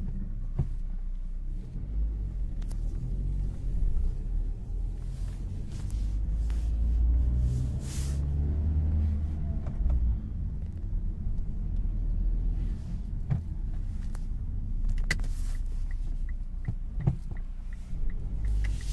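Mitsubishi Lancer 1.5's four-cylinder petrol engine running as the car pulls away in low gear, with a low rumble that swells and eases. There are a few scattered clicks and, near the end, a light, regular ticking. The cold-start knock the owner suspects comes from the clutch or flywheel is not standing out, and he takes this to mean the parts have warmed up.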